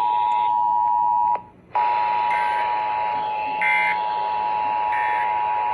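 Emergency Alert System two-tone attention signal: a steady, loud two-note buzzing tone that breaks off with a click about a second and a half in, then starts again after a short gap. It is the alert tone that comes before the spoken test message of a Required Monthly Test.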